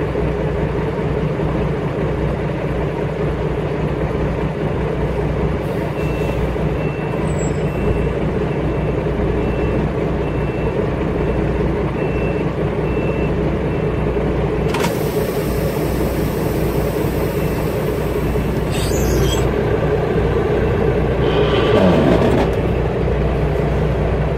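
Semi-truck diesel engine idling steadily, heard from inside the cab. A high beep repeats for several seconds, then a loud hiss of air lasts about four seconds. Near the end the engine note rises briefly.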